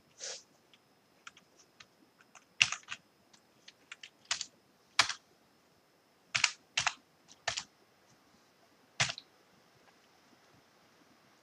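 Computer keyboard typing: about a dozen irregular keystrokes, a few of them louder clacks, stopping about nine seconds in.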